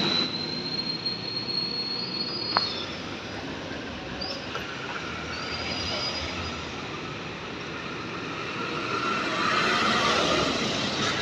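Cars and a Toyota HiAce minibus driving over a railway level crossing, with tyre and engine noise. It swells as the minibus passes close near the end. A thin, steady high tone sounds through the first three seconds, with a single sharp click shortly after.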